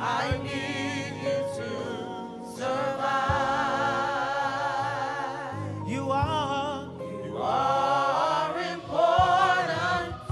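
Gospel praise team of men and women singing together into microphones, with vibrato on long held notes, over steady sustained chords underneath.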